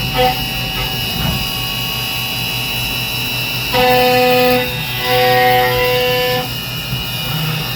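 CNC mill cutting billet aluminium: the end mill gives a steady high-pitched singing whine while in the cut. The whine stops and starts again twice as the tool engages and leaves the work, over the constant running sound of the machine.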